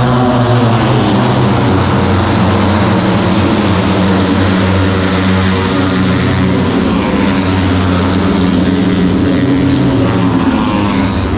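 Moto3 race bikes' 250 cc single-cylinder four-stroke engines running at race speed around the circuit, heard as a loud, steady drone. In the second half, some pitch rises and falls as bikes rev and change gear.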